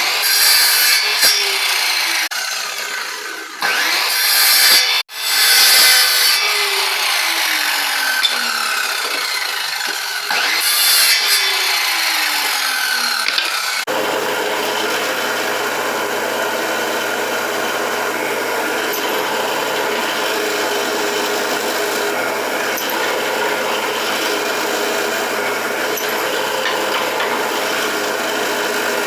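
Woodworking power tools cutting and sanding jatobá hardwood. In the first half there are several short passes, with a tone that falls away after some of them as the motor winds down. About halfway there is a cut to one machine running steadily.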